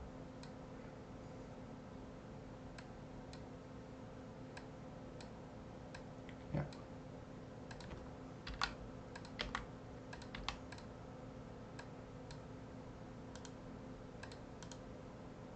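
Scattered clicks and taps of a computer keyboard and mouse, with a quick run of them a little past halfway, over a faint steady hum.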